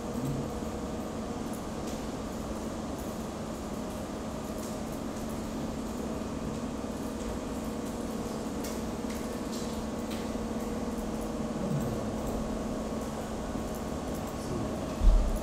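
Steady mechanical room hum with a few faint clicks, and a short low thump near the end.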